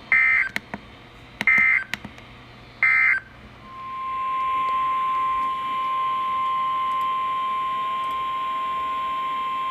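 Three short bursts of warbling SAME digital data tones from NOAA Weather Radio, the end-of-message code closing a flash flood warning. About four seconds in, the steady single-pitch 1050 Hz weather radio warning alarm tone starts and holds.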